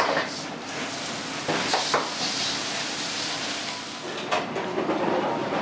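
Food sizzling in a wok over a gas burner, with the metal ladle knocking and scraping against the wok a few times.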